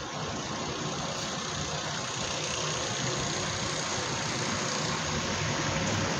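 Water-feature cascades pouring down stone walls into a shallow basin: a steady rushing splash, growing slightly louder, with a steady motor hum underneath.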